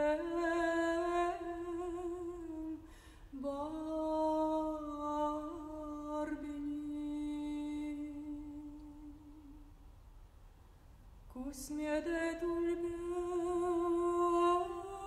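A woman singing unaccompanied in long held notes with vibrato. She breaks briefly about three seconds in, lets one note fade away, and comes back in about eleven and a half seconds in.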